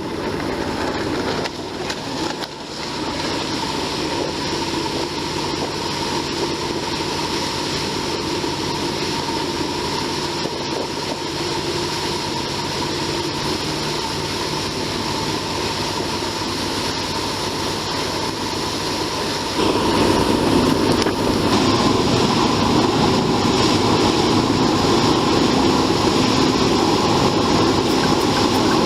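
An engine running steadily under wind and water noise, getting louder about two-thirds of the way through.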